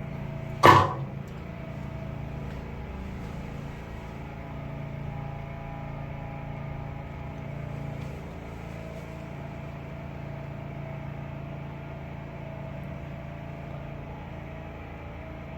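Steady mechanical hum, with one loud, sharp knock under a second in.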